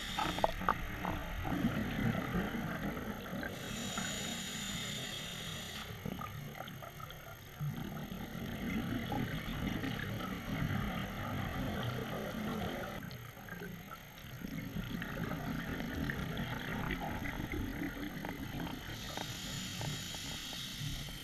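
Scuba regulator breathing heard underwater: a hissing inhalation a few seconds in and again near the end, with long stretches of exhaled bubbles rumbling and crackling between them.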